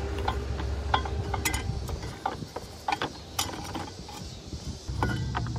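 Scattered, irregular metallic clicks and knocks of hand tools and metal parts as the engine-cooling fan and its fan clutch are worked loose from the front of the engine, over a low background hum that drops away for the middle of the stretch.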